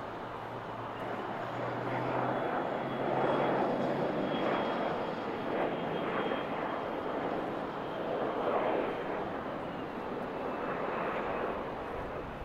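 Dassault Falcon 900's three Honeywell TFE731 turbofans during the landing roll: a rushing jet noise with a thin high turbine whine. It swells about a second in, surges a few times and eases off near the end.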